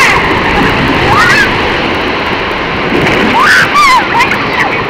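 Water rushing through an enclosed tube waterslide as riders slide down it: a loud, steady wash. Over it come short rising-and-falling shouts from the riders, the loudest about three and a half to four seconds in as they come out into the splash pool.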